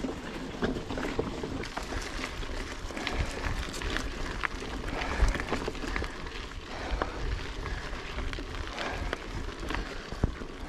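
Canyon Grand Canyon AL SL 9.0 hardtail mountain bike rolling over a rough dirt trail, its tyres on the ground with frequent clicks and knocks as it rattles over bumps and stones. Wind rumbles on the camera microphone.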